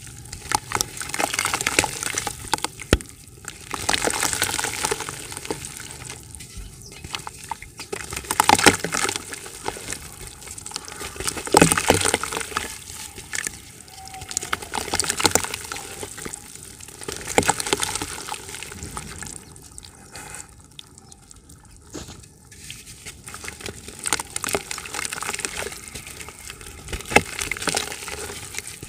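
Dry yellow dirt chunks crushed and snapped by hand, crackling irregularly as they break, with crumbs and dust pattering and splashing into a bucket of water. A quieter lull comes about two-thirds of the way through.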